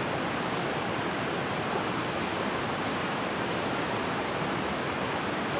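Steady rushing of flowing water from a river or stream, an even hiss with no breaks.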